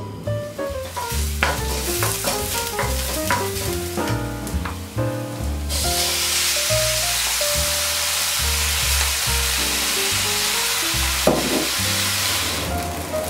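Chopped kimchi hitting hot oil in a stainless steel frying pan, sizzling loud and steady from about six seconds in, after lighter frying of sliced scallions. A single knock, like the wooden spoon striking the pan, comes near the end, and background music plays throughout.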